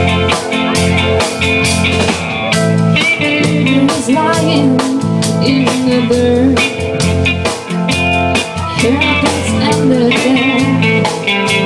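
Live rock-blues band playing an instrumental passage: drum kit keeping a steady beat under electric guitar, bass and keyboard, with a lead melody line that bends up and down in pitch.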